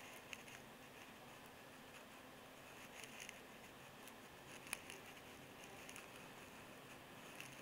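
Near silence: faint room hiss with a few small clicks, one a little louder near the middle.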